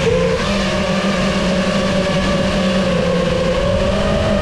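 FPV drone's electric motors and propellers whining steadily in flight, the pitch drifting a little with throttle.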